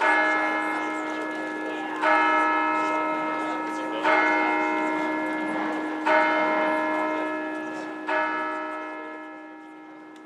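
A large church bell tolling five times, one strike every two seconds, each strike ringing on into the next; the last one dies away near the end.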